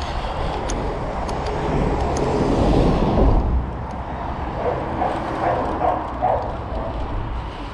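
Street noise while riding a pedal bike: a steady low rumble of wind and traffic on the microphone, with a vehicle passing and swelling loudest about two to three seconds in.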